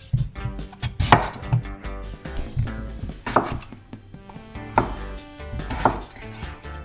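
Chef's knife cutting through raw yam and striking a wooden chopping board: four firm chops a second or two apart.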